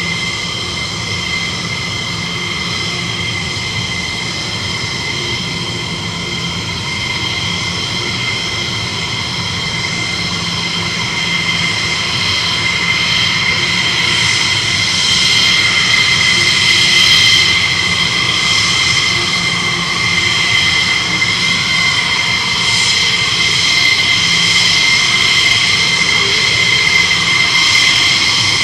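F-16 fighter jet engine idling on the ground: a steady high-pitched whine over a deeper rumble, growing somewhat louder about halfway through.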